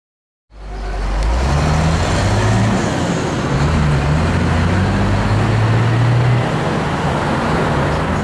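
Loud street traffic noise: a motor vehicle running close by, with a deep hum that shifts pitch a few times. It cuts in suddenly about half a second in.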